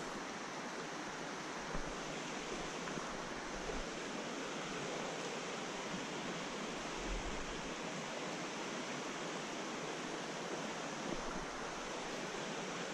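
Steady rush of a shallow, rocky trout stream flowing over riffles.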